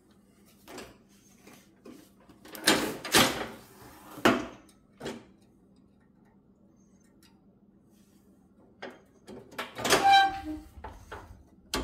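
Metal knocks and clatters from handling and fitting a riding mower's deck lift lever parts: a few clunks, a pause, then another burst of knocks with a short metallic ring near the end.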